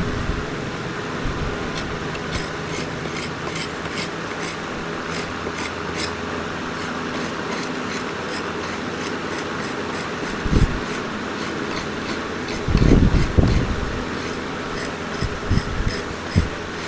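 A steady mechanical whir with light, evenly repeating ticks and a few dull knocks in the second half.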